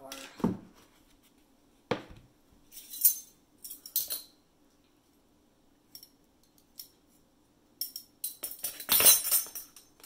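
Metal measuring spoons on a ring jingling and clinking against a ceramic mug as flour is scooped in: scattered knocks and scrapes with quiet gaps between them, and the busiest, loudest clatter about a second before the end.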